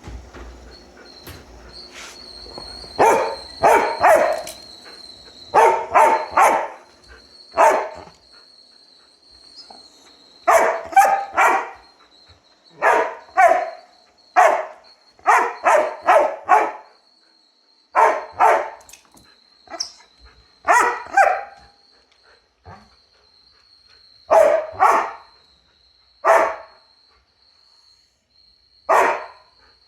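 A dog barking repeatedly in short volleys of two to four barks, a pause of a second or two between volleys. Under the barks runs a steady high-pitched whine from a running robot vacuum cleaner.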